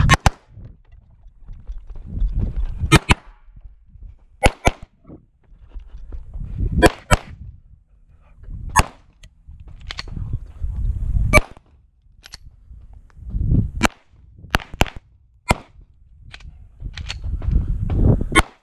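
Pistol shots from a 9mm major Open-class SPS Vista Star 2011, fired in quick pairs and singles, well over a dozen in all. A low rumble fills the gaps between strings.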